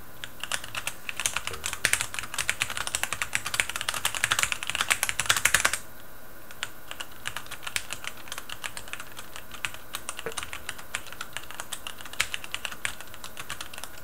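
Cherry Raptor K1 keyboard with linear, non-clicky Cherry MX Black switches being typed on. It opens with a fast, dense, loud run of keystrokes with the keys bottoming out, which stops about six seconds in. After a short pause comes a second run, softer and sparser, typed without bottoming out the keys.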